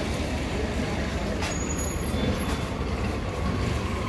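Busy city street ambience: a steady rumble of vehicle traffic, with a sharp click about a second and a half in.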